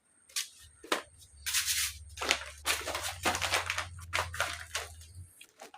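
Irregular scraping and rustling strokes of hand work, as freshly mixed fibreglass resin is worked onto glass fibre sheet, over a low steady hum.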